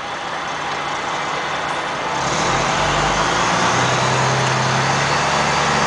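Truck engine heard from inside the cab, running steadily, then picking up about two seconds in as the truck pulls forward.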